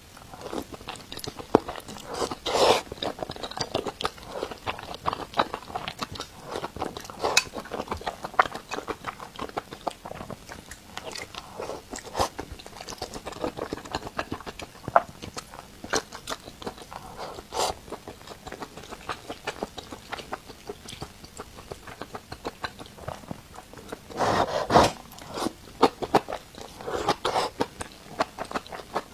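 Close-miked eating of stir-fried mala xiang guo, with wide noodles and sausage bitten off and chewed, wet mouth clicks and smacks. Louder flurries of biting and chewing come every few seconds, the biggest about 25 seconds in.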